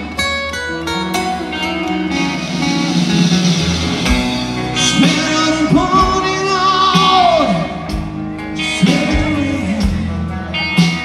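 Live rock band playing amplified electric and acoustic guitars with a male singer, with a long held sung note a little past the middle.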